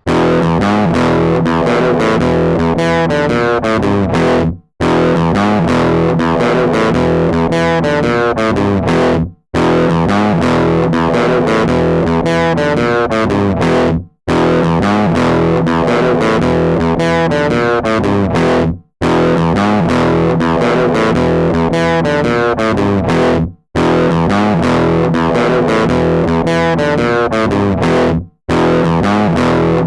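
Background music: distorted electric guitar rock with bass, broken by a brief dropout about every five seconds.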